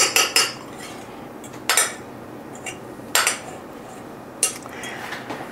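Metal utensil clinking against a stainless steel mixing bowl: a quick run of about four clinks at the start, then single clinks about every second and a half.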